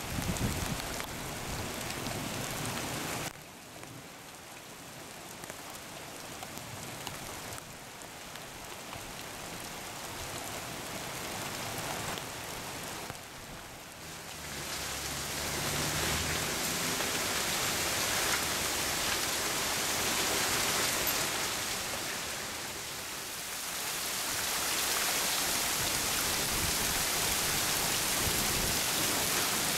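Steady rain falling, an even hiss that drops and shifts suddenly a few times and grows louder in the second half.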